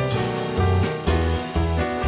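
Instrumental background music, with pitched notes over a bass line that changes every half second or so.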